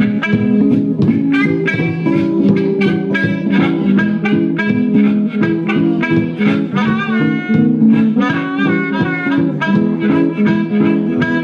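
Blues harmonica and guitar playing a steady-rhythm instrumental lead-in to a song, with the harmonica bending its notes over the picked guitar.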